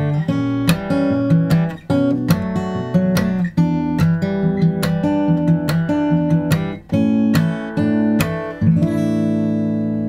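Martin D-42 acoustic guitar fingerpicked, with percussive thumb slaps on the strings between the bass and treble notes, moving through an E minor 7 pattern into A. About eight seconds in, a full A sus 4 chord is strummed from the lowest string up and left to ring and fade.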